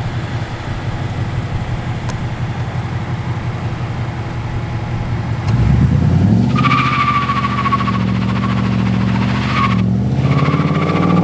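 2013 Ford Mustang GT's 5.0-litre V8 running steadily at low revs, then revved hard about five and a half seconds in and held high while the rear tyres squeal in a burnout attempt, the squeal breaking off briefly near the end. The burnout is weak, which the driver puts down to the back brakes grabbing too much.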